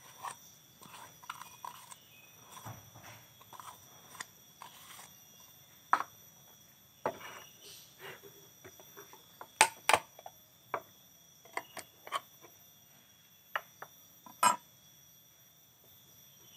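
Paint tins and a plastic measuring cup being picked up and set down on a workbench: a scattering of sharp clicks and knocks, the loudest a close pair about ten seconds in.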